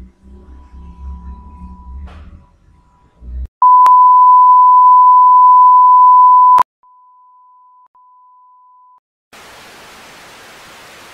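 Television test tone, as played with colour bars: a loud, steady beep about three seconds long that starts and stops with a click, followed by a quieter tone at the same pitch, broken once. A low rumble comes before the beep, and an even static hiss near the end.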